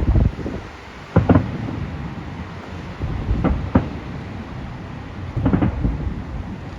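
Fireworks exploding at a display: sharp bangs in clusters a second or two apart, with a low rumble carrying between them.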